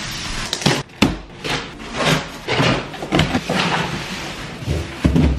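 Large cardboard shipping box being opened and handled: a run of scrapes and rustles of cardboard, with sharp knocks about a second in and a low thump near the end.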